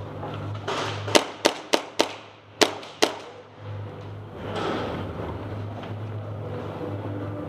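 Airsoft gun fired six times in single shots, uneven and about a third to half a second apart, starting about a second in, over a steady low hum.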